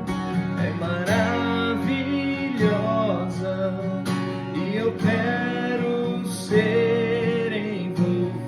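Worship-song music carried by acoustic guitar strumming, with a wavering melody line over sustained band chords.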